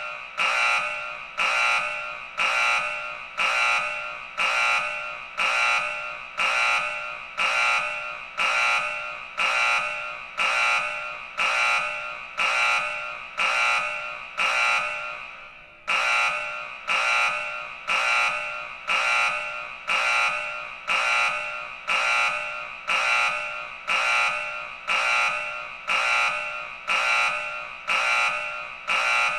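Emergency alert system alarm tone: a loud, multi-pitched alert pulse that strikes sharply and fades, repeating about four times every three seconds. The pulsing breaks off briefly and restarts about halfway through.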